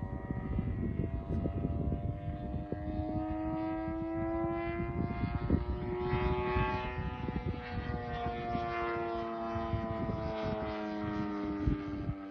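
3W-157 two-stroke petrol engine of a large RC model plane running in flight, its pitch rising about halfway through and then falling away slowly as the plane flies past. Wind buffets the microphone throughout.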